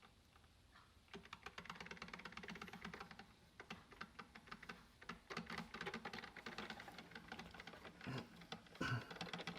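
Hamilton Beach 46201 12-cup drip coffee maker brewing, its heater boiling water up the tube with rapid, irregular crackling and popping. The crackling starts about a second in and comes in clusters over a faint low hum.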